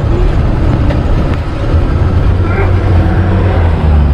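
A bus engine and road noise heard from inside the moving bus's cabin: a loud, steady low rumble.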